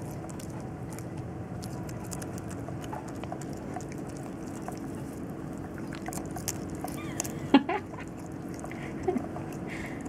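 A raccoon crunching and chewing nuts, a run of small irregular clicks and cracks over a steady low hum. A short, loud sound stands out about seven and a half seconds in, with a smaller one a little over a second later.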